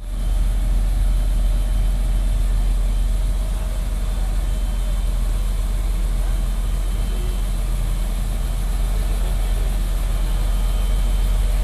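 MAN heavy-haul tractor's diesel engine running with a steady low rumble as it slowly pulls a 240-tonne boiler load on hydraulic modular trailers.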